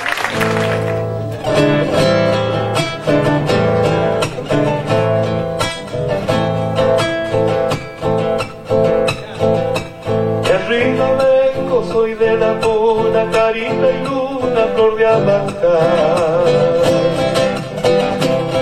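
Argentine folk music with no words: an acoustic guitar strummed in a steady rhythm, joined about ten seconds in by a held, wavering melody line.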